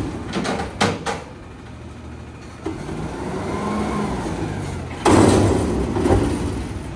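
Garbage truck at work: its engine runs low throughout, with a few sharp clanks about a second in and a whine that rises and falls. A loud noisy rush comes about five seconds in and lasts about a second.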